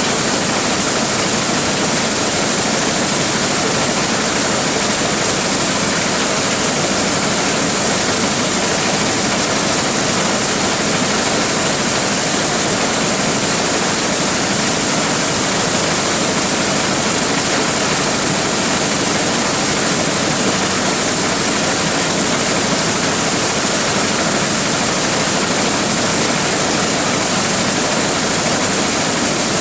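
Large corn sheller machine running steadily: a loud, even rushing noise with a strong high hiss.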